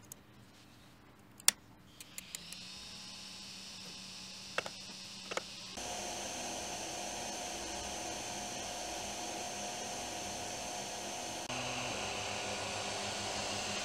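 A few clicks as a microSD card is pushed into an Ender 3D printer's card slot, the loudest about a second and a half in. Then the printer starts up with a steady whir carrying high held tones, which grows louder about six seconds in as it prints the first layer, with a steady hum added.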